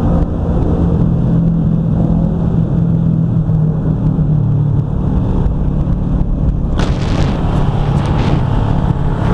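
Motorcycle engine running steadily at cruising speed, heard from the rider's seat with road rumble. About seven seconds in, a rush of wind noise on the microphone suddenly comes up over it.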